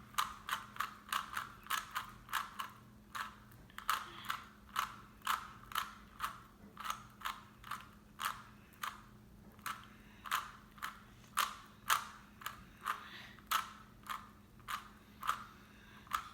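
A 3x3 speed cube being turned by hand: its plastic layers click with each turn, at about two turns a second in a steady, unhurried rhythm.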